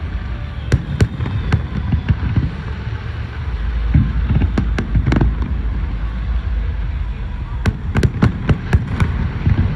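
Aerial fireworks bursting in sharp bangs, scattered at first and then a quick run of about seven near the end, over a constant low rumble.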